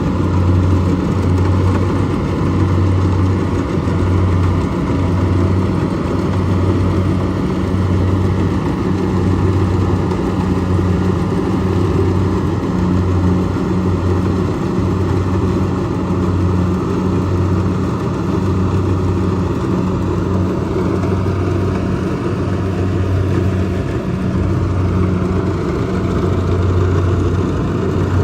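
Kubota DC70 combine harvester's diesel engine running steadily, with a deep hum that wavers slightly.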